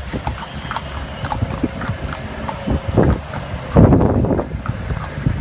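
A carriage horse's hooves clip-clopping on a paved street at a steady walking pace, two to three strikes a second. A louder burst of noise comes just before four seconds in.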